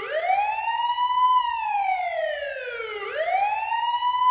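Electronic police-siren wail from a toy police car: the tone climbs for about a second and a half, sinks for nearly two, and starts climbing again about three seconds in.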